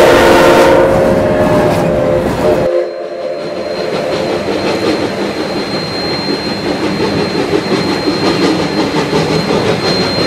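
Train horn sounding a chord that fades out over the first couple of seconds. After an abrupt cut, a train rolls along the rails with an even rhythmic clatter and a thin, steady high whine.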